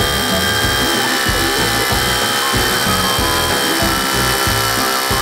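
DeWalt DCH072 12V brushless SDS-plus rotary hammer drilling steadily into concrete with a 5/32-inch bit, a continuous motor whine over the rapid hammer blows. Background music with a steady beat plays underneath.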